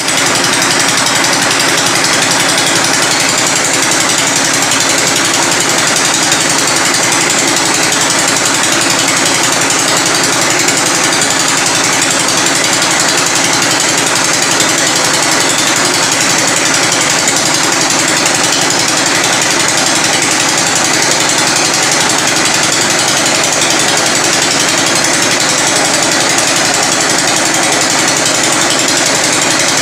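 Engine-driven well-boring rig drilling into hard rock, running loudly and steadily without a break.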